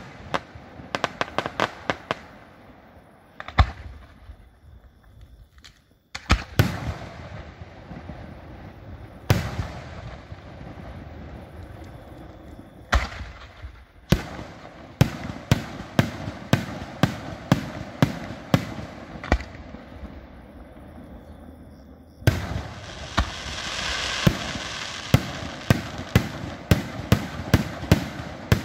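Aerial firework shells bursting in sharp bangs, often several a second, with a short lull about four seconds in. About three-quarters through, a loud hissing crackle sets in beneath a steady string of bangs.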